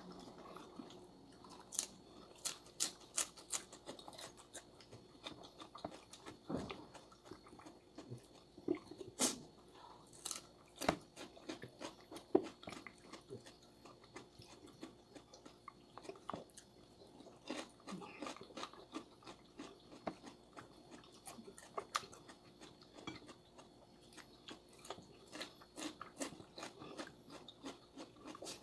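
Close-up chewing and crunching of food, with frequent short sharp clicks of chopsticks against the plates.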